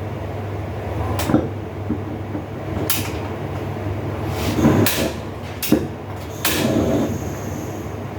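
Cookware and utensils knocking and clanking, about six separate sharp knocks, the last one ringing briefly, over a steady low hum.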